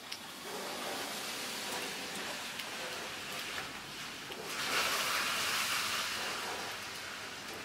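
A steady hiss of outdoor noise that swells louder for about two seconds, around five seconds in.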